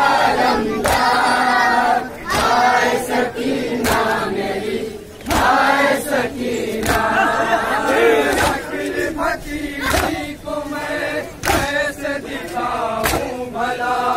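A crowd of men chanting a noha lament together, with sharp hand slaps of matam chest-beating every second or two.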